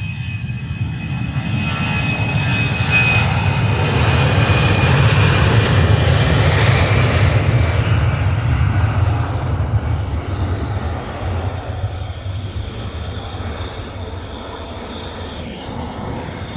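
Jet airliner's engines at takeoff power, the noise building to a peak about five seconds in and then slowly fading as it moves away, with a steady high whine over the first few seconds.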